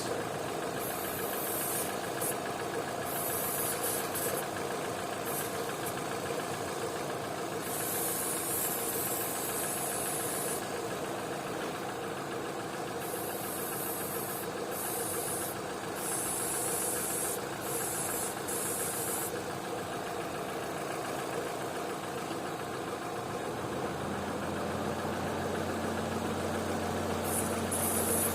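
Car petrol engine idling steadily while short bursts of aerosol spray hiss again and again over its vacuum hoses and connections. This is a vacuum-leak test: a leak would show as the idle rising when the flammable spray is drawn in. About three-quarters of the way through, a deeper steady hum joins the engine sound.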